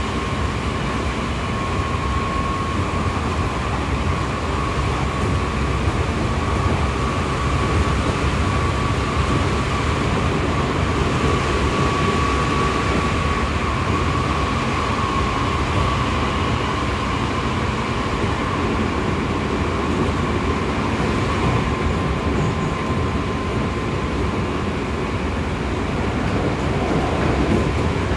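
Seibu 6000 series electric train heard from inside the passenger car while running at speed: steady wheel-on-rail rumble with a steady traction-motor whine from its Hitachi GTO-VVVF drive, sinking slightly in pitch over the second half.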